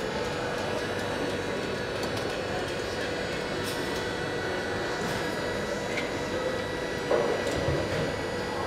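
Car assembly line ambience: a steady hum of factory machinery with constant tones, a few light clicks of tools on metal, and a brief louder clatter about seven seconds in.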